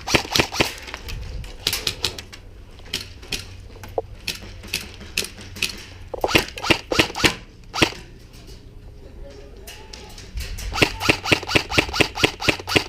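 Airsoft guns firing in bursts of rapid shots, several a second. The bursts come near the start, twice in the middle, and densely over the last couple of seconds, with quieter gaps between.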